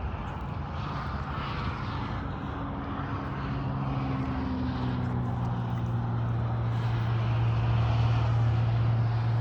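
Steady engine drone with a low hum, growing gradually louder.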